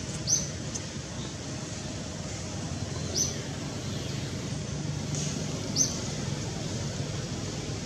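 Short high-pitched animal chirps, one every two to three seconds, over a steady low background hum.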